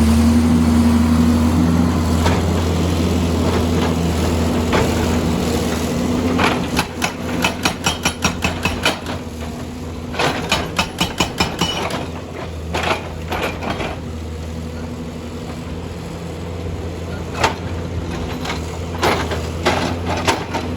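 Excavator's diesel engine running steadily, with two runs of rapid knocks, about five a second, as it works on a big stone, and a few single knocks later.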